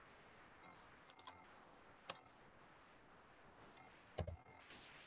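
A few scattered computer mouse clicks over near-silent room tone, the loudest near the end with a low thump.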